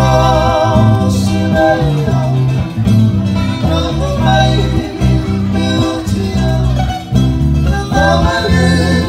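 Men singing a Fijian song together, backed by a strummed ukulele and guitar over a steady electric bass line.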